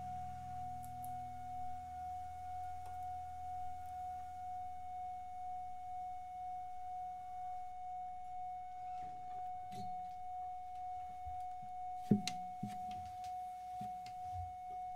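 A single sustained musical tone rings on steadily, gently wavering in loudness, as the song's final note, while lower notes fade out over the first few seconds. Faint clicks come in the last few seconds, with one sharp click about twelve seconds in.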